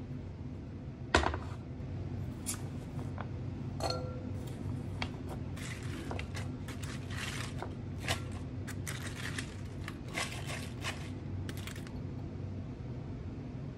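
Food-prep handling sounds over a steady low hum. A sharp knock comes about a second in, and a glass clink with a short ring about four seconds in. Then a long run of crisp rustling and crackling as raw cabbage leaves are tipped from a plastic salad spinner into a glass mixing bowl.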